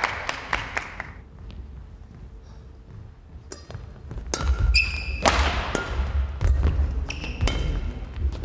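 Badminton rally on an indoor court. After a quiet few seconds, rackets strike the shuttlecock sharply about once a second, with court shoes squeaking and players' feet thudding on the floor.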